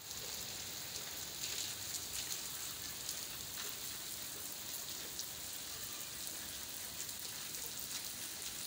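Light rain falling on a wet brick rooftop: a steady hiss with scattered small drop ticks.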